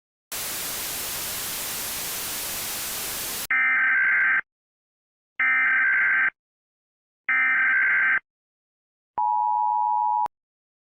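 TV static hiss for about three seconds, then an Emergency Alert System signal: three short buzzing data bursts of the SAME header about a second apart, followed by about a second of the two-tone attention signal.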